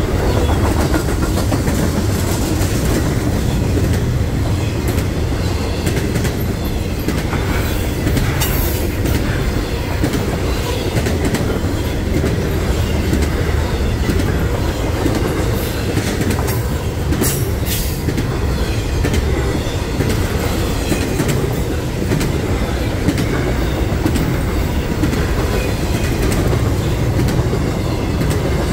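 Freight train cars rolling past with a steady low rumble and wheels clattering over the rail joints, with brief high-pitched wheel squeals about 8 seconds in and again around 17 seconds.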